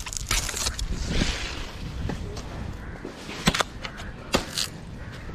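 A few sharp knocks and clatters, two close together about three and a half seconds in and two more about a second later, over a rustling noise.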